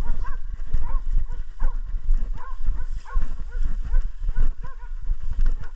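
Hunting dogs giving tongue on a wild boar: short, high yelps repeating two or three times a second, over a heavy low thumping and rumble.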